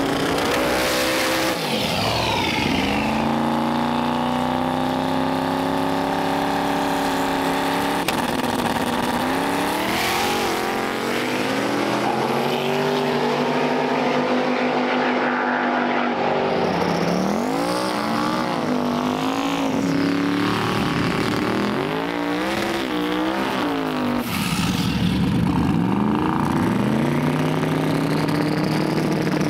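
Drag race car engines at full throttle: a pair launches about a second in and pulls hard down the strip, the engine note climbing and then holding high. Later the engines are revved up and down repeatedly, then settle into a steady high-revving note near the end.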